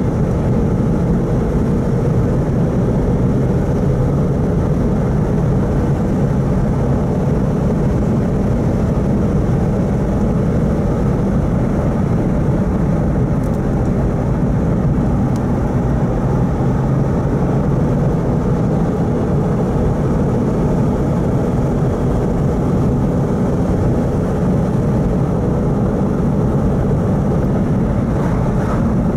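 A car driving at a steady speed, heard from inside the cabin: a constant low rumble of engine and tyres on asphalt.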